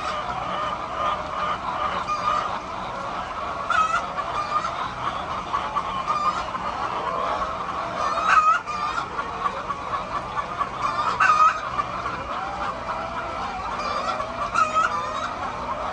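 A large flock of chickens clucking and calling together, many voices overlapping, with louder short calls breaking out above the rest about four times.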